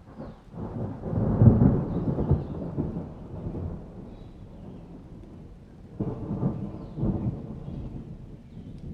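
Dry thunder: a deep rolling rumble builds just after the start, peaks about a second and a half in and dies away over a few seconds. A second peal follows about six seconds in, swelling again a second later.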